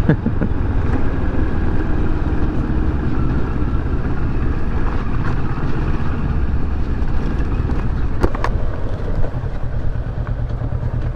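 Kawasaki Versys 650's parallel-twin engine running at low speed as the motorcycle rides slowly along a rough dirt track. A pair of short, sharp knocks comes about eight seconds in.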